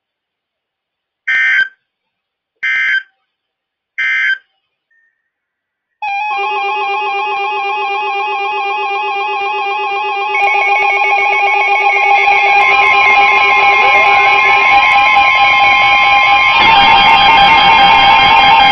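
Three short bursts of EAS/SAME digital data tones, the end-of-message code after a NOAA Weather Radio warning. After a brief silence comes loud music made of layered sustained tones, which grows louder about ten seconds in and again near the end.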